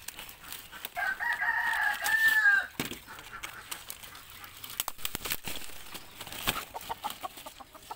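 A chicken gives one long, loud, pitched call starting about a second in and lasting nearly two seconds, followed by scattered short clicks and rustles.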